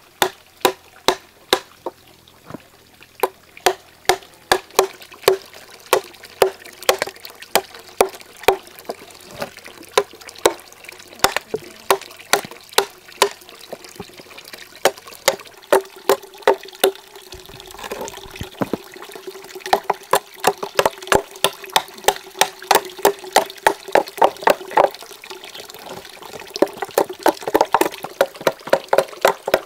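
Machete chopping into a wooden log to hollow it out: a steady run of sharp knocks, roughly two a second and quickening near the end, each with a short ring. Water from a bamboo pipe runs into a metal pot underneath, louder from about halfway.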